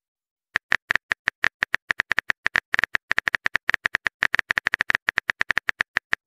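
Simulated keyboard typing clicks from the Texting Story chat app, one short high click per letter as a message is typed out, in a quick, uneven run of about forty clicks starting about half a second in.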